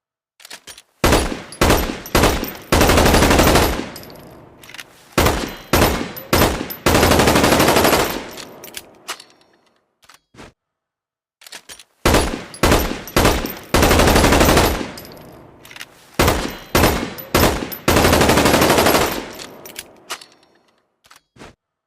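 Magpul PDR-C rifle gunfire sound effect: a few quick single shots, then long full-auto bursts, each fading away with echo. The whole sequence plays twice, with a short silence between.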